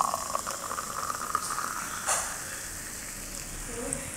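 A carbonated drink poured from a glass bottle into a glass, the pour tailing off in the first half second, then the foam fizzing in the glass. One light click about two seconds in.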